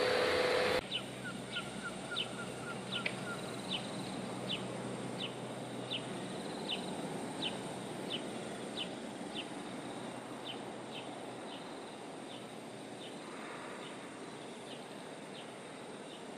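A power tool's steady whine cuts off just under a second in. After it, a bird gives a short high chirp over and over, about one every two-thirds of a second, over quiet outdoor background.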